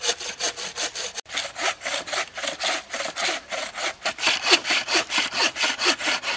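Bow saw cutting through a log by hand, in rapid, even back-and-forth strokes, about four or five a second, each stroke a rasping scrape of the teeth in the wood.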